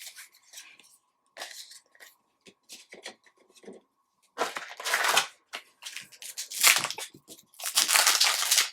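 Trading cards and a foil pack wrapper being handled: a few light clicks, then from about halfway in several loud rustling, tearing bursts.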